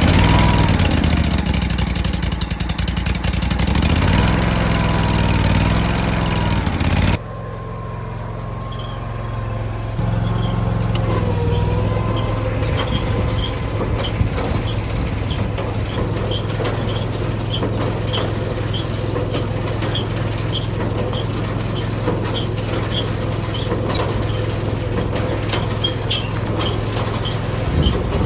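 Engine running. Its pitch rises and falls for the first several seconds, then changes abruptly to a steady run with faint, evenly spaced ticks about once a second.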